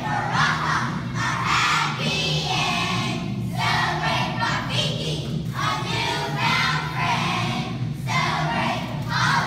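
A group of children singing together in phrases of a second or two, over a steady low musical accompaniment.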